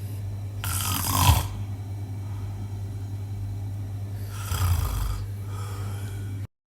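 A man snoring in his sleep: two long rasping snores about three and a half seconds apart, each followed by a softer breath, over a steady low hum. The sound cuts off suddenly near the end.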